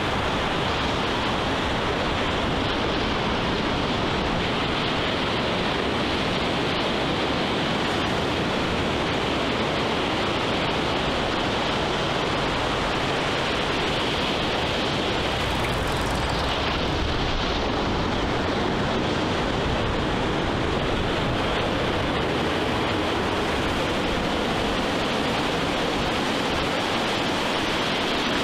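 Ocean surf on the shore, heard as a steady, even rushing with no rise and fall.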